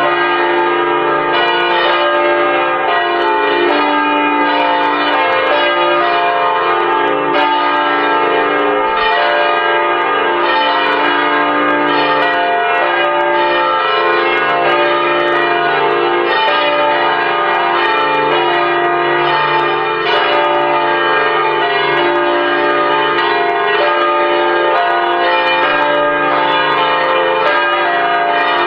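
Several church bells ringing together in a continuous peal, with new strikes every half second or so over a sustained wash of overlapping ringing tones.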